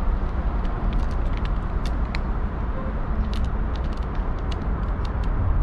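Cat eating dry kibble from a metal dish: an irregular run of small crisp clicks and crunches as it chews. Underneath, a steady low rumble of city traffic.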